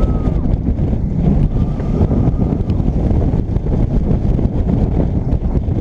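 Wind buffeting a GoPro's microphone as a straddle roller coaster train runs at speed, with the low rumble of the ride. It is loud and steady throughout.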